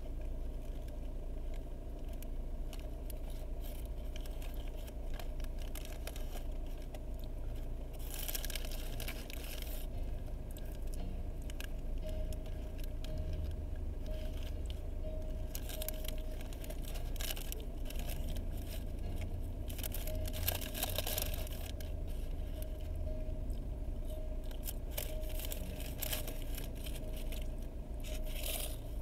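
Paper fast-food bag rustling and crinkling as hands dig into it, in several short bursts over a steady low hum in a car cabin.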